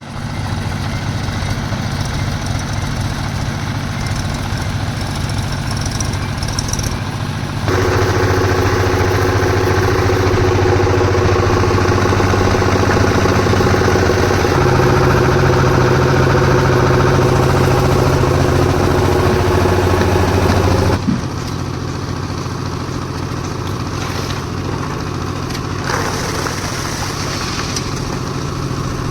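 Concrete mixer's engine running steadily. It runs louder and busier from about 8 s in and drops back to the lower level at about 21 s.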